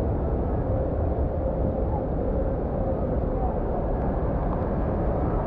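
Indoor water park ambience on a lazy river: a steady rush of water noise with faint, distant children's voices.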